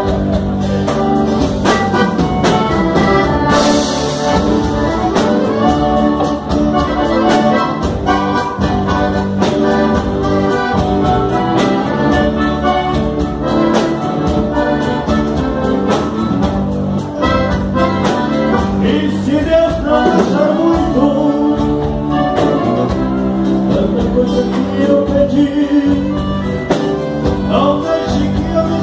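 Live band playing traditional gaúcho music: a piano accordion leads over acoustic guitar, electric bass and a drum kit keeping a steady beat, with a man singing.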